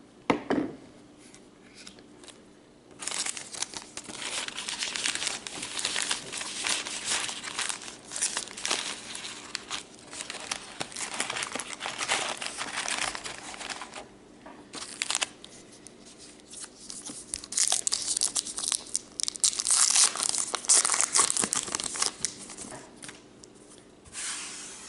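Trading-card pack wrapper being torn open and crinkled, in long stretches of rustling separated by short pauses.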